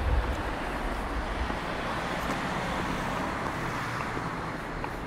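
City street traffic: the steady rush of a passing vehicle, with a deep rumble at the start that fades within about half a second.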